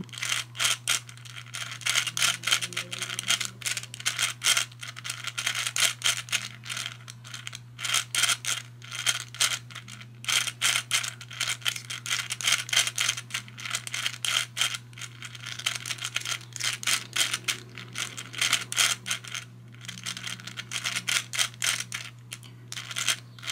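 Balls of a Hungarian Rings puzzle clicking and rattling in their tracks as the rings are turned again and again, in quick runs of clicks broken by brief pauses, over a low steady hum.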